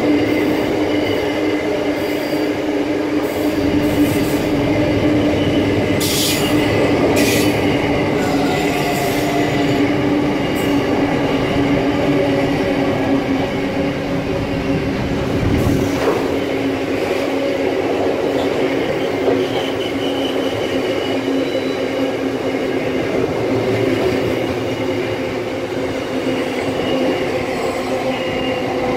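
Container wagons of a long freight train rolling steadily past, with a continuous rumble of wheels on rail and steady squealing tones from the wheels. A couple of brief sharp metallic bursts come about six and seven seconds in.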